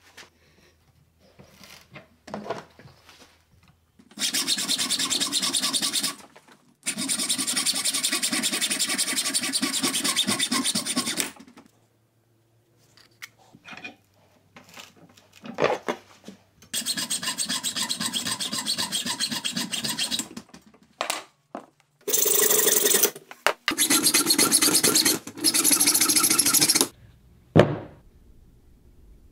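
Air-powered saw cutting through heavy copper battery cable clamped in a bench vise, running in five bursts of a few seconds each with short pauses between. A single sharp knock near the end.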